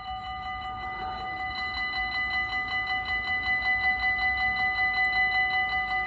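Warning bells of a Dutch AHOB automatic level crossing ringing in a rapid, even rhythm as the barriers come down, warning that a train is approaching. They grow somewhat louder over the first couple of seconds.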